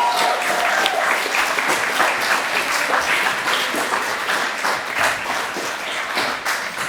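Audience applauding with many hands clapping, slowly dying down toward the end.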